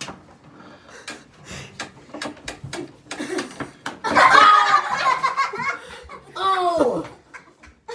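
Pie Face game's crank handle clicking round in a run of clicks until the spring-loaded hand flips up. About four seconds in, several people burst into laughter.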